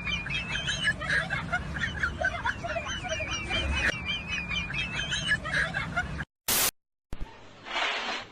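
A bird chirping in quick, repeated wavering notes, broken off about six seconds in by a short burst of noise and a moment of silence.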